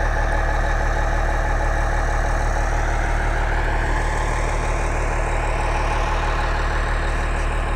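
Log skidder's diesel engine running steadily as it blades snow off a road, with a faint rising whine in the middle.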